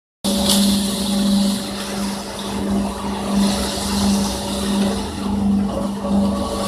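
Truck-mounted concrete pump running: a steady mechanical drone with a low hum that swells and fades evenly, a little more than once a second, over a hissing, rushing noise.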